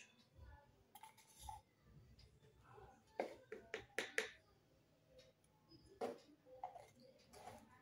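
Light clicks and taps of a plastic spoon against a small plastic bottle and cup while cornstarch is scooped out, a quick cluster of them about three to four seconds in and another near six seconds.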